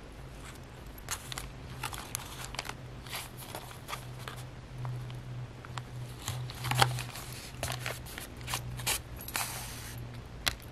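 Paper and card rustling and crinkling as hands handle and thread a small handmade paper notebook, with a series of short irregular clicks and taps and a sharper one about seven seconds in. A low steady hum runs underneath.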